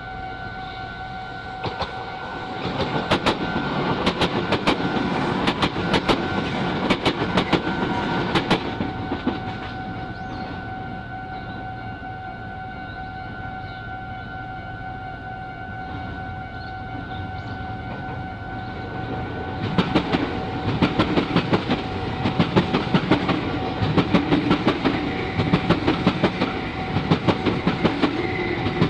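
Meitetsu trains passing over a level crossing, wheels clacking rapidly over the rail joints: one passes from about two seconds in until about nine seconds, and another starts about twenty seconds in. The crossing's warning alarm rings as a steady two-note tone underneath throughout.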